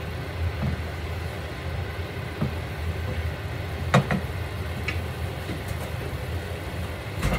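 Red-wine sauce boiling hard in a skillet on a gas stove, a steady bubbling over a low hum. A few light knocks from a wooden spoon against the pan come around the middle, and there is a sharp click near the end.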